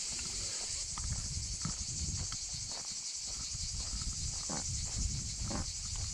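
Steady high-pitched chorus of cicadas in the summer scrub, over a low rumble and irregular footsteps on a dirt and gravel path.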